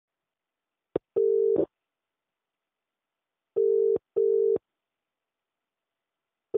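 Telephone ringback tone, as the caller hears it: a steady low tone in double bursts (ring-ring), repeating about every three seconds, with a click just before the first ring.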